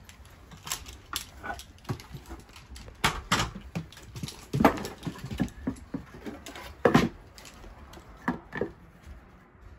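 Irregular wooden knocks and clatter as a 2x4 block and hand tools are handled and set down on wooden attic floorboards. The two loudest knocks come about halfway through and about seven seconds in.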